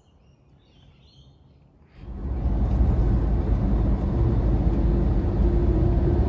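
A few faint bird chirps over quiet outdoor air, then, about two seconds in, an abrupt change to steady road and engine noise heard from inside a car cruising on a highway.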